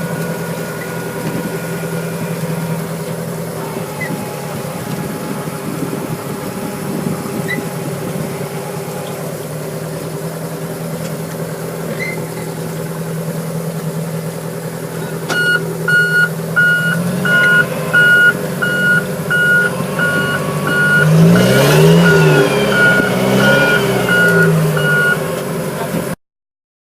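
An engine runs steadily. About halfway through, an electronic beep starts repeating evenly at about two beeps a second, and near the end the engine note rises and falls several times before the sound cuts off suddenly.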